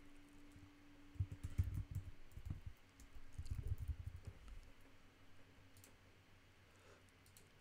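Typing on a computer keyboard in two quick runs of keystrokes, followed by a few scattered clicks.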